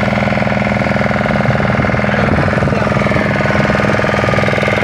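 Motorboat engine running steadily under way, an even drone with a fast firing rhythm.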